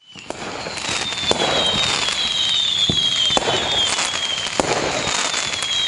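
Fireworks sound effect fading in over about a second: sharp bangs every second or so, several high whistles sliding slowly down in pitch, and crackling.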